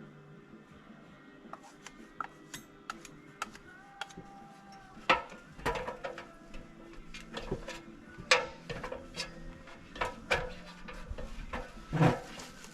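A series of irregular sharp clicks and knocks, like objects being handled and set down, over faint background music.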